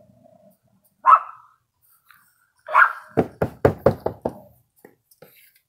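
Dog barking: one bark about a second in, another near the middle, then a quick run of about seven short, sharp sounds within about a second.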